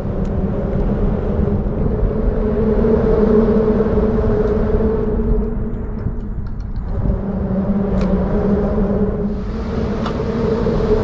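Steady low rumble and hum of road traffic crossing the bridge overhead, easing briefly midway, with a few faint ticks.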